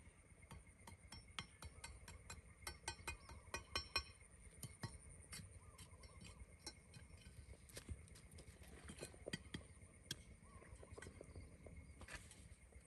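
Faint, irregular clicks and light taps, most frequent in the first four seconds, over a steady faint high hum.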